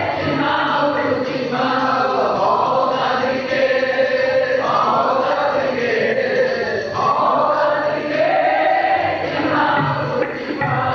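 Sikh kirtan: male voices singing a shabad to harmonium and tabla accompaniment.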